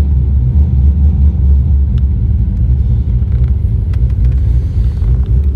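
Twin-turbocharged 2009 Cadillac CTS-V's V8 idling steadily, a low rumble heard from inside the closed cabin.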